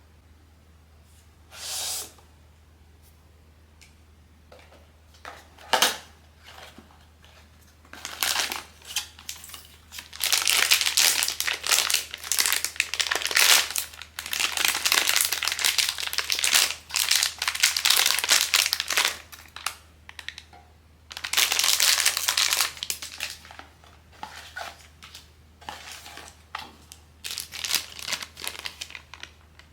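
Blind box packaging being opened by hand: plastic wrapping crinkling and tearing. It starts with a couple of short rustles, then comes in dense, irregular bursts from about eight seconds in.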